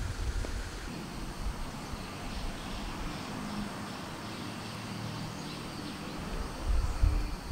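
Outdoor ambience with faint, repeated chirping of birds or insects over a steady background hiss. Low rumbles swell at the start and again near the end.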